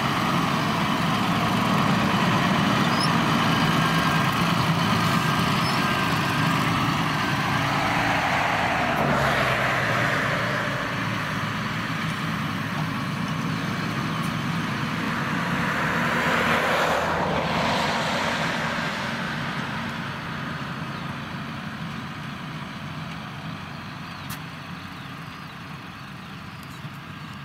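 Diesel engine of a Claas Arion tractor running under load as it pulls a Grimme potato planter, fading as the tractor moves away. Two louder swells of noise rise and fall around the middle.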